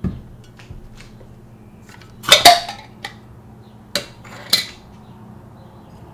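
Metal screw lid of a glass mason jar being handled and set down on the counter: a soft thud, then a loud clatter of metal on glass about two and a half seconds in, and two sharper clinks near the end.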